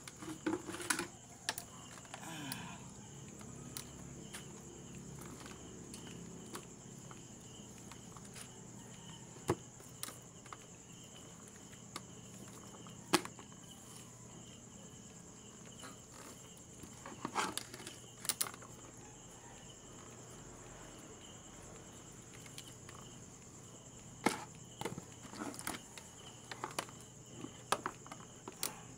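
Steady high chirring of night insects, with scattered sharp knocks and clatters as a metal basin and wire-mesh crates are handled.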